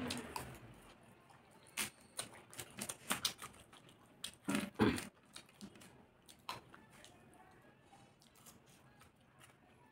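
Eating sounds: wet chewing and short squishy mouth clicks as tandoori chicken is torn apart by hand and eaten. The sounds come thickest in the first half, the loudest about four and a half seconds in, then thin out.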